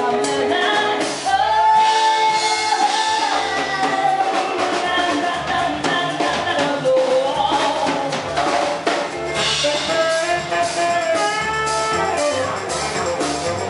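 Live band playing a song: a woman singing the lead in long held lines over drum kit and guitar.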